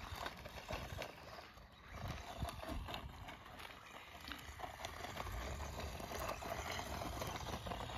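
Faint outdoor ambience: an uneven low rumble of wind on the microphone, with a few faint scattered ticks.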